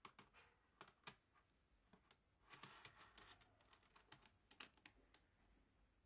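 Mini magnet balls clicking as a row of them is pressed onto the edge of a board of magnet balls: a scatter of sharp little clicks, thickest in a quick run about halfway through.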